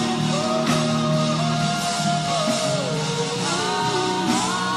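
Slow instrumental worship music: sustained low chords under a slow melody line that steps and glides in pitch.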